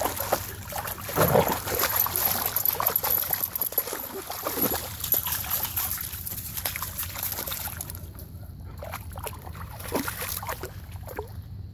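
Dogs' paws splashing through shallow water and scuffing on wet gravel, in irregular splashes and steps over a steady hiss of water, which fades about eight seconds in.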